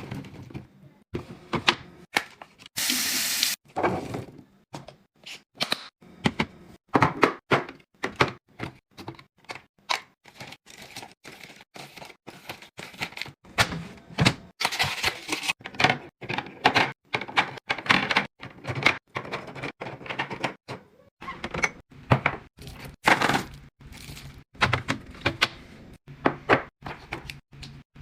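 Containers, jars and bottles being handled and set down while a fridge is restocked: a steady run of irregular taps, clacks and thunks, with a couple of short rustling or hissing bursts.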